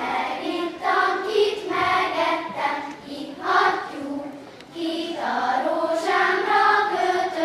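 Children's choir singing, in phrases with brief dips between them.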